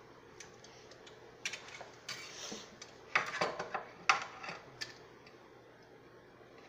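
Metal tongs and a serving spoon clinking and scraping against a pan as food is lifted out onto a plate, a scatter of short clinks and knocks, busiest in the middle.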